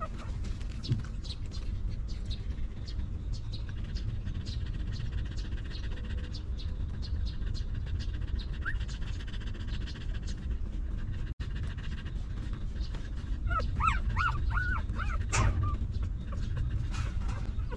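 Mother dog panting over a steady low rumble, and newborn puppies giving a short run of high, arching squeaky whimpers about three-quarters of the way through.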